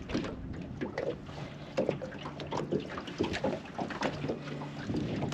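Water slapping and knocking irregularly against the hull of a small aluminium boat in the wind, with a faint low steady hum underneath.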